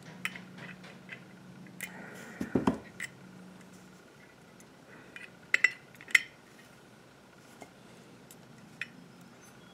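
Light metallic clicks and taps of a small tool and carburetor parts being worked while fitting the float spring of a Walbro WF-7 carburetor. A few sharper clicks come about a quarter and about halfway through, over a faint steady hum.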